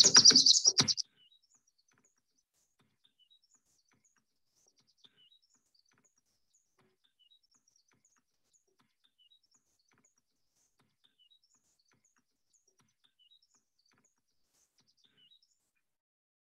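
A recorded soundscape played back: a loud burst of knocks and noise for about the first second, then faint bird chirps scattered through the rest.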